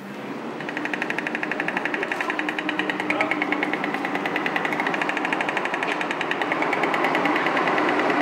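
White stork clattering its bill on the nest with its head thrown back: a rapid, even rattle of many strokes a second, starting about half a second in. This bill-clattering is the stork's greeting and display call at the nest.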